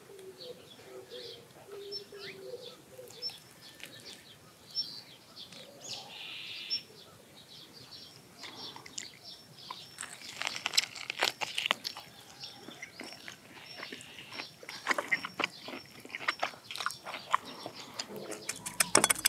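Birds calling and chirping, then from about halfway a person biting into and chewing a grilled tomahawk steak off the bone, a quick run of wet, sharp chewing clicks that is the loudest sound.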